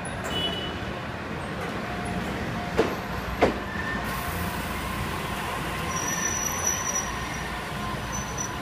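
A JR East HB-E300 series hybrid train pulls slowly past at close range, arriving at a platform, with a steady rumble of wheels and running gear. Two sharp knocks about three seconds in, and a thin high squeal late on as the train slows.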